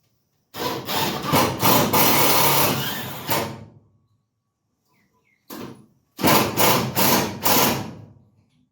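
A handheld power tool running in two loud bursts of about three seconds each, with a short blip between them.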